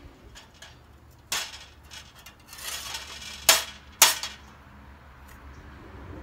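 Freshly plasma-cut steel pieces clinking and clanking against each other and the workbench as they are handled and picked up: three sharp clanks, about a second in, and at about three and a half and four seconds, with lighter ticks and a short scrape between them.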